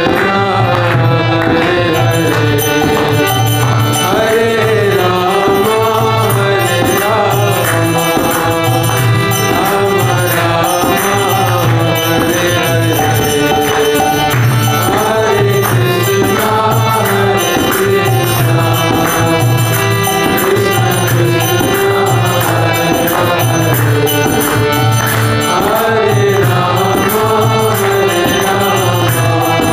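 Devotional kirtan: a lead voice sings over a steady harmonium drone, with a mridanga drum and small hand cymbals (karatalas) keeping a regular beat, and other men joining in the chant.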